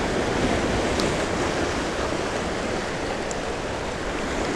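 Ocean surf breaking and washing over shoreline rocks: a steady rushing noise.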